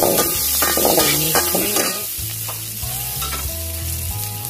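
Sliced garlic, shallots and red chilies sizzling in hot oil in a wok, stirred and scraped with a spatula. The stirring strokes are busiest in the first two seconds, after which the frying goes on more quietly.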